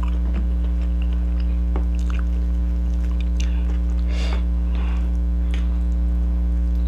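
Close-miked eating: faint wet chewing, lip smacks and small clicks from a mouthful of rice and fried fish, over a loud, steady electrical hum.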